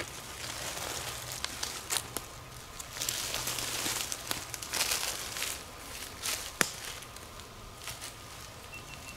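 Footsteps through dry fallen leaves, an irregular crunching and crackling with sharp snaps, densest for a couple of seconds midway.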